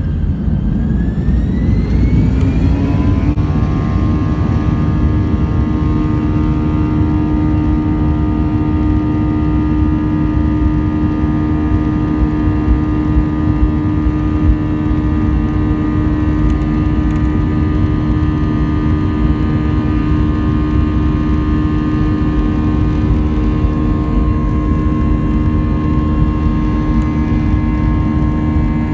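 Airbus A320 jet engines spooling up to takeoff thrust, heard from inside the cabin: a rising whine that levels off about three seconds in. It then holds as a steady drone of several tones over a low rumble as the airliner accelerates down the runway.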